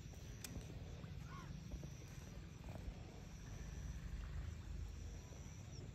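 Outdoor ambience: a steady low rumble of wind on the microphone, with a faint short bird call about a second and a half in.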